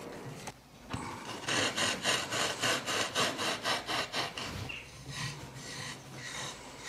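Glass muller grinding dried hawthorn-leaf pigment powder on a glass slab: quick, gritty rubbing strokes at about five a second, then slower, softer scraping.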